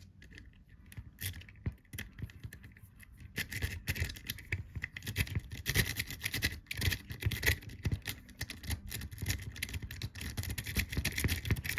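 A dimple rake being worked in and out of a dimple lock's keyway, metal scraping and clicking against metal. It starts as scattered faint clicks, then becomes fast, continuous scraping from about three seconds in.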